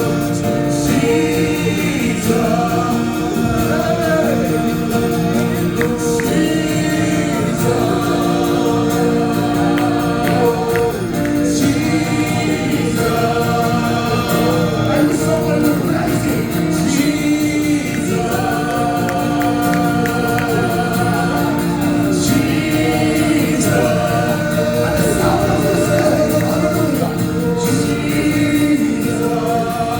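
Gospel worship music: voices singing together over sustained instrumental chords and a steady beat.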